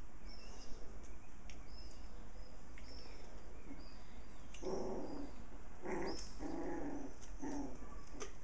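Puppies play-fighting, giving a few short growls and yaps in the second half.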